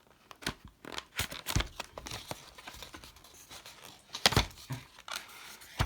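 Hands handling a Hornby model locomotive and its plastic packaging: rustling with several sharp clicks and knocks, the loudest about four seconds in.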